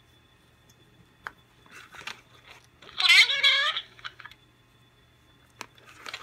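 Talking Steve Urkel doll playing a short recorded phrase in a high-pitched voice about three seconds in, lasting about a second. A sharp single click comes a little over a second in, and another near the end.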